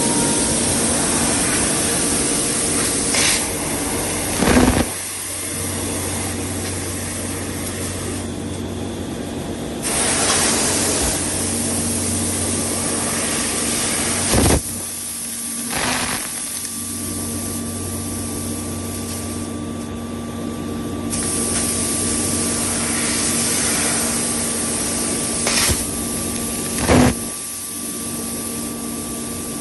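CNC laser cutting machine cutting 3 mm aluminium sheet: a steady hiss over a low machine hum, the hiss dropping away and coming back a couple of times, with three short loud bursts spaced roughly ten seconds apart.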